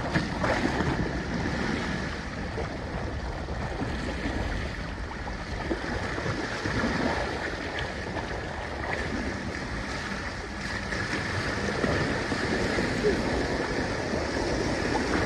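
Steady rush of wind and choppy water splashing along the hulls of a small sailing trimaran kayak under way.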